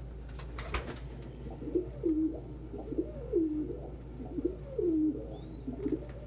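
Domestic pigeons cooing over and over, low calls that swoop and fall in pitch, beginning about a second and a half in. A short knock comes just before the cooing starts.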